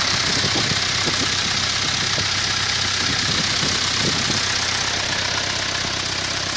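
Toyota 13B four-cylinder diesel engine idling steadily.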